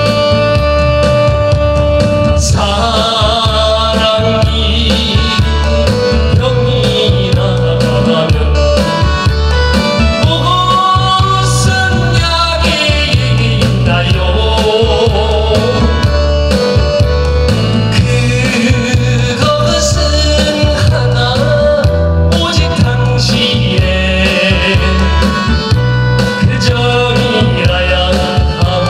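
A man singing a Korean popular song into a handheld microphone over instrumental accompaniment. After a short instrumental lead-in, the voice comes in about two seconds in.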